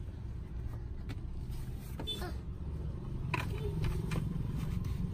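Steady low rumble of a car's engine running at idle, heard through an open car door, with a few light knocks.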